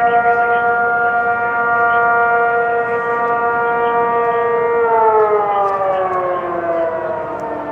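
Outdoor tornado warning sirens sounding a steady, multi-tone alert signal for a drill. About five seconds in, the pitch starts falling as the siren winds down after shutting off.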